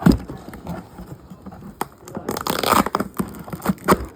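Tape being peeled and torn off toy packaging, with cardboard and plastic rustling and handling knocks: a sharp knock right at the start and a longer tearing noise a little past the middle.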